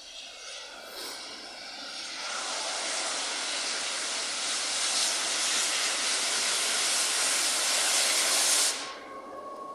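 Steam locomotive letting off steam: a loud, steady hiss that builds over the first couple of seconds and cuts off suddenly near the end.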